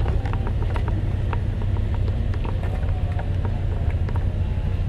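Off-road truck engine idling: a steady low rumble, with scattered light clicks over it.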